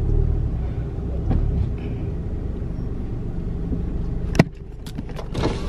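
Low rumble of a car heard from inside the cabin as it reverses a short way. A sharp click about four and a half seconds in, after which the rumble drops.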